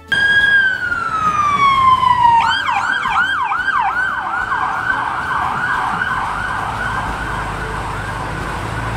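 Emergency vehicle siren, loud: a held wail that slides down in pitch for about two seconds, then switches to a fast yelp of quick rising sweeps, about three a second, that slowly fade. Low traffic rumble underneath, growing near the end.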